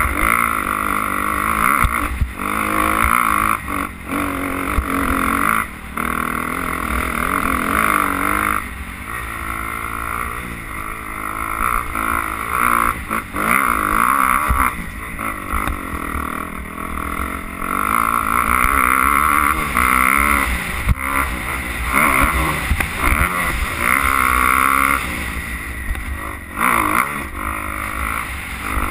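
Dirt bike engine being ridden on a rough trail, revving up and dropping back over and over as the throttle is worked.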